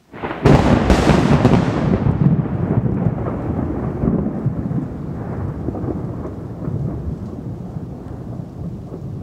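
A thunderclap: a sudden loud crack about a third of a second in, then a long low rumble that slowly fades.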